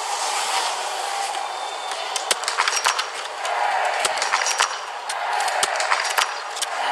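Biathlon .22 rimfire rifles firing at the range, several shooters at once, so the sharp shots come irregularly and in quick succession from about two seconds in. A steady crowd hubbub runs underneath.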